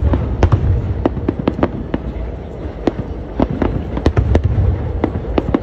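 Aerial firework shells bursting in quick succession: sharp cracks and bangs several times a second over a steady low rumble.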